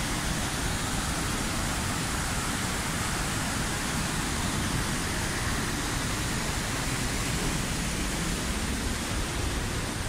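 Steady rushing roar of the Palovit waterfall: water pouring and crashing close by, an even noise with no breaks.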